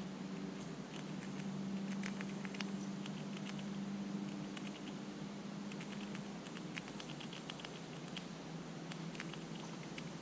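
Light, irregular clicking and ticking in scattered clusters, over a steady low hum that fades a little after the middle.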